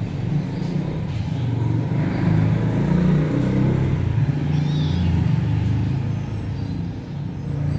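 A low motor-vehicle engine rumble, such as a car or motorbike running close by, growing louder about two seconds in and easing off near the end.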